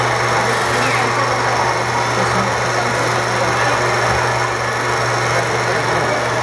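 Vintage film projector sound effect running steadily, a continuous mechanical whirr over a constant low hum, played over the hall's speakers.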